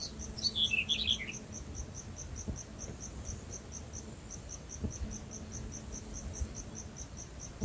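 Cricket chirping steadily, about five chirps a second. A short run of falling high notes comes about half a second in.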